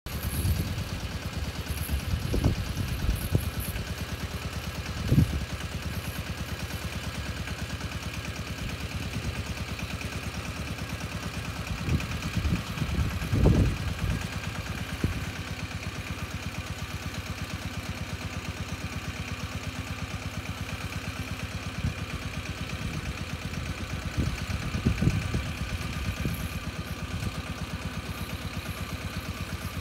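Tomo Vinković 821 compact tractor's diesel engine running at a steady speed with an even pulsing beat, driving the mounted orchard sprayer. A few short low rumbles rise over it, the loudest about 13 seconds in.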